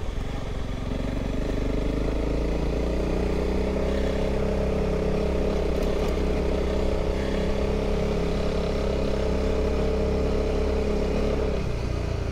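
Honda CRF300 Rally's single-cylinder engine running at a steady, light throttle while the motorcycle rides along a dirt road, over a steady low rumble. The engine note eases off a little near the end.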